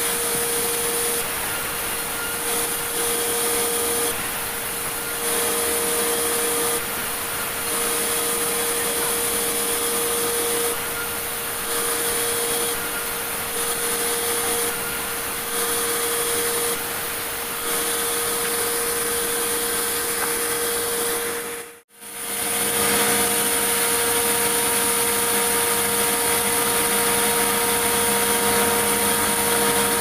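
Sawmill band saw running and cutting through large meranti logs, a steady loud machine noise with a hum that comes and goes every second or two. The sound drops out for a moment about two-thirds of the way through, then resumes.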